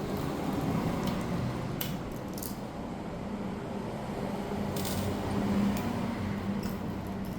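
Screws being removed from a laptop's case with a small screwdriver: a few sharp clicks and light metal handling sounds over a steady low hum.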